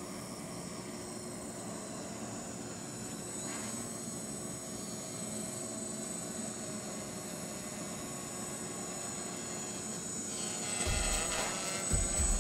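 QuadLugs Box Quad quadcopter in flight, its electric motors and propellers giving a steady buzz. It gets louder near the end as the quad comes close, with some low rumbling.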